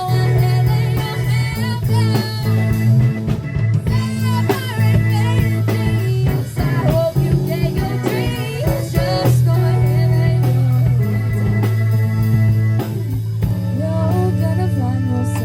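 Band music with no sung words: a melodic lead with bending notes over sustained bass notes and a steady drum beat.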